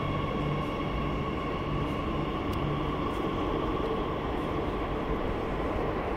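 Steady low rumble of a metro station, with a thin whine at several pitches that weakens toward the end.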